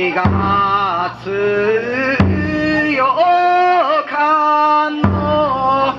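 Bon odori ondo singer drawing out long, ornamented notes of a kudoki ballad, with a taiko drum struck three times.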